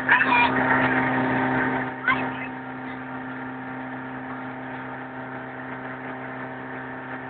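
Motorboat engine running steadily at speed, with wind rushing over the microphone. Loud girls' shrieking laughter over the first couple of seconds, then the engine drone alone.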